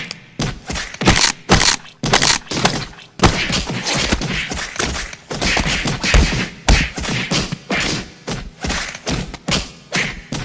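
Fight sound effects: a rapid, irregular string of punch-like thuds and whacks, several hits a second, with hissy swishes between them.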